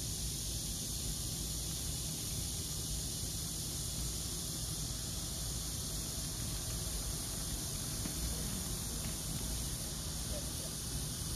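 Steady outdoor background noise: a constant high hiss over a low, unsteady rumble of wind on the microphone.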